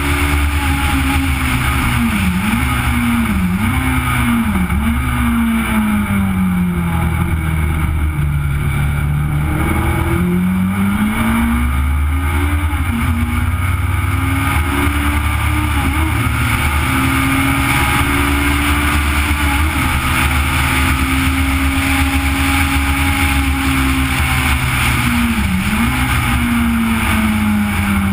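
Legend car's Yamaha four-cylinder motorcycle engine under hard racing load, heard from the car. Its pitch dips briefly three or four times in the first few seconds, falls to low revs about eight seconds in, climbs back and holds high for several seconds, dips once more, then falls near the end.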